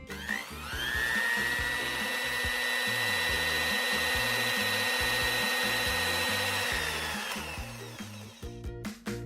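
Electric grinder grinding roasted whole spices into powder: the motor spins up with a rising whine, runs steadily, then winds down near the end.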